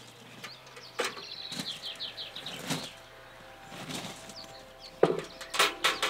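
Scattered knocks and clatter of wooden deck planks being handled, loudest about five seconds in. A small bird sings a quick run of short falling notes about a second in.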